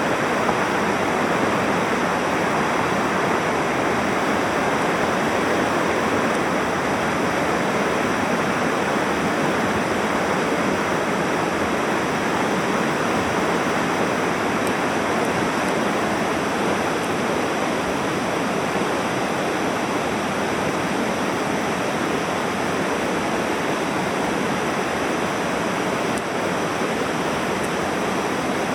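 Mountain stream water rushing steadily over rocks, a continuous loud rushing without breaks.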